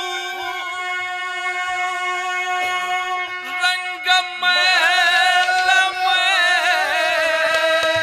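A man singing long, held, wordless notes in the style of a Haryanvi ragni alaap, with musical accompaniment. About halfway through, the voice gets a little louder and breaks into wavering, bending ornaments.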